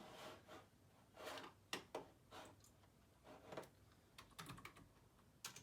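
Quiet typing on a computer keyboard: irregular clusters of key presses.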